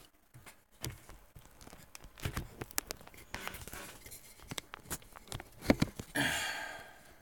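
Handling noise from a phone being fitted and adjusted on its clamp mount: scattered knocks and clicks, then a short rush of rubbing noise about six seconds in that fades away.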